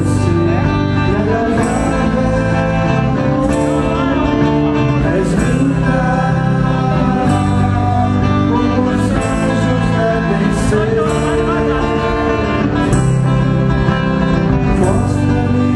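A band playing a song live, with plucked guitar, continuous and loud, and a sharp high accent about every two seconds.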